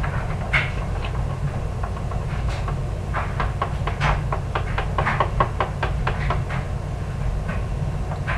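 Quick runs of light knocks and clicks from kitchen work, several a second, over a steady low hum.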